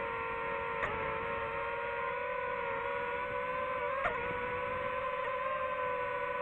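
DJI FPV drone's motors and propellers whining steadily in flight, a high multi-toned whine that wavers only slightly in pitch. Two brief ticks come about a second in and about four seconds in.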